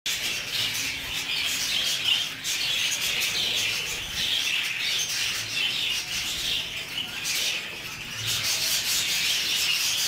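Budgerigars chattering and chirping, with the dry rustle and crackle of seed as they peck and husk it from a hand.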